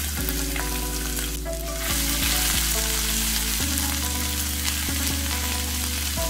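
Ginger-garlic paste sizzling in hot coconut oil in a nonstick pan while a wooden spatula stirs it. A low steady hum sits underneath and shifts in pitch every second or two.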